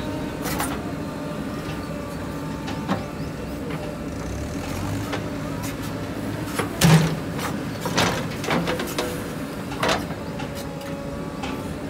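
A JCB 3DX backhoe loader's diesel engine runs steadily under a hydraulic whine that shifts slightly in pitch while the backhoe bucket digs into a heap of soil. Several knocks from the bucket and arm come between about seven and ten seconds in, the loudest near seven seconds.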